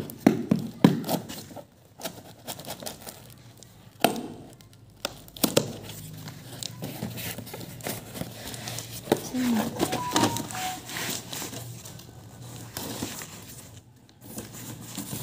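A cardboard box being opened by hand: knocks, scraping and crinkling as fingers pick and pull at its packing tape, loudest in the first second and again around the middle, with scissors at the tape near the end.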